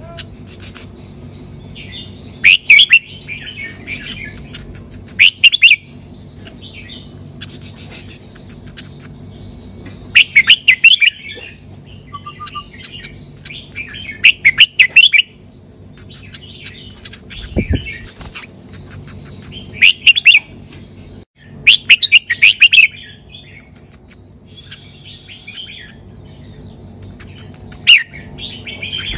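Red-whiskered bulbul singing: short, loud phrases of quick notes, mostly in pairs, repeated every few seconds.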